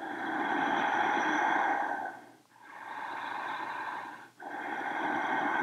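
A woman breathing deeply and audibly while holding a yoga pose: three slow breaths, each about two seconds long, with brief pauses between.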